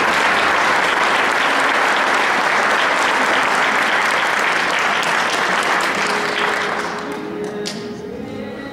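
Audience applauding, dying away about seven seconds in as background music comes through.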